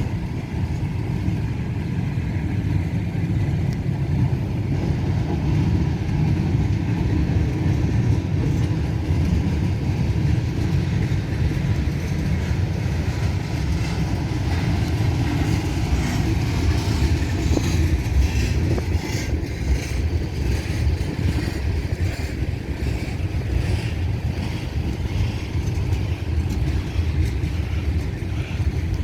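CSX freight train rolling past slowly, a steady low rumble of wheels on rail, with light clicking from the wheels now and then.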